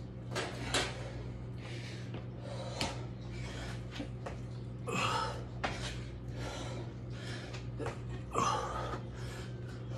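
A man breathing hard, gasping in and out in quick strokes, winded from doing burpees with push-ups. A steady low hum runs underneath.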